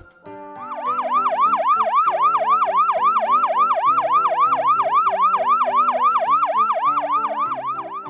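Fast yelp-style siren sweeping rapidly up and down, about three times a second, over background music. It starts just under a second in and stops near the end.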